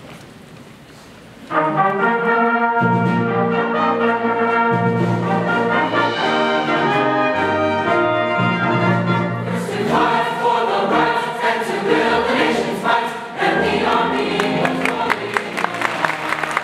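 Large mixed choir singing full, sustained chords in a reverberant hall, coming in loudly about a second and a half in. Audience applause starts near the end over the held final chord.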